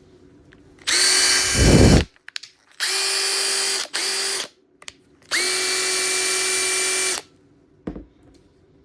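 Makita TP131D cordless 4-mode impact driver run unloaded in three short bursts, its motor whine starting and stopping sharply each time. The first burst ends with a loud low rattle, and there is a single click near the end.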